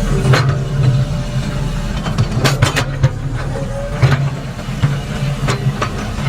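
Excavator diesel engine running steadily with a low rumble, with several sharp metal clanks scattered over the few seconds.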